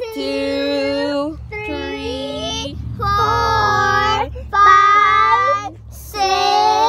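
Several children counting aloud together in a slow sing-song chant, each number drawn out for about a second, with short breaks between.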